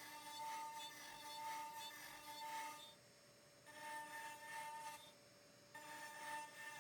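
CNC router spindle running at a steady pitch while a roughing pass cuts into walnut, the cutting noise swelling and easing about once a second as the bit sweeps back and forth. The sound cuts off abruptly twice, for under a second each time.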